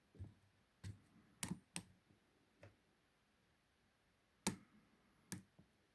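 Scattered small metallic clicks and taps, about seven at irregular intervals, from a lock pick and tension wrench working the pins of a 50 mm Ruma padlock.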